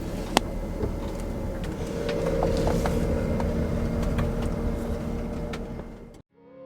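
Vehicle running, heard from inside: a steady low engine and road rumble with a faint steady hum and small scattered rattles. It cuts off abruptly near the end.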